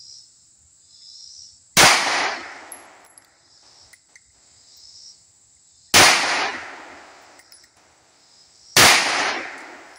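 Three single shots from a Smith & Wesson 3953 double-action-only 9mm pistol, slowly spaced, about two, six and nine seconds in, each trailing off over about a second. Insects buzz faintly in pulses between the shots.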